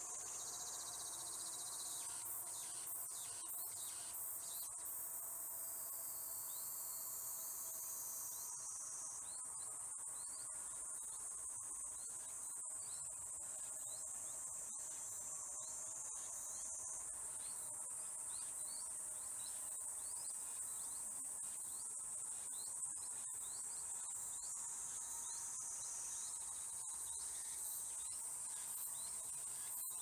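Steady high-pitched insect chorus, with faint short chirps scattered through it.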